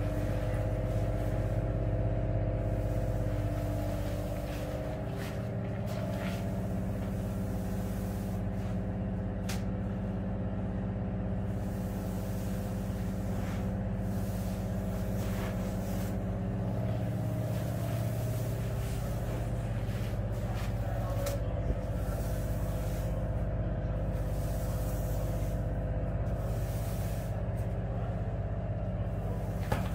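Steady drone of the pump machine that feeds the lightweight concrete fill through the hose, running without a break, with a few faint sharp clicks.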